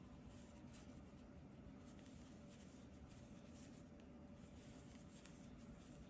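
Near silence: faint, irregular soft rustles of yarn being drawn through stitches with an aluminium crochet hook, over a low steady room hum.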